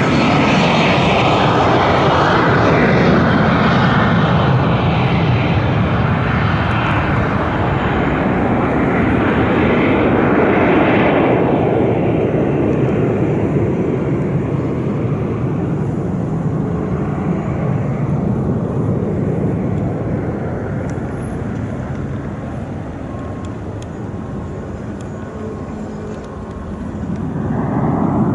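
Cessna 525B Citation CJ3 business jet's twin turbofans at takeoff power, loud at first, then fading steadily as the jet climbs away. A swell of other noise rises near the end.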